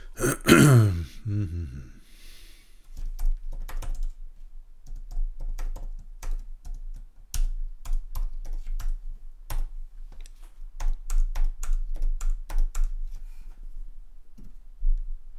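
Typing on a computer keyboard: a run of irregular key clicks from about three seconds in, as a username and password are entered. Near the start there is a brief, loud sound that falls in pitch, and a low hum runs underneath.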